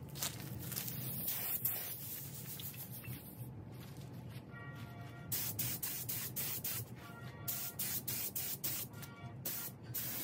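Compressed-air gravity-feed spray gun hissing as it sprays epoxy primer onto a steel car fender: a long spray at first, then short bursts on and off in the second half. Music plays underneath.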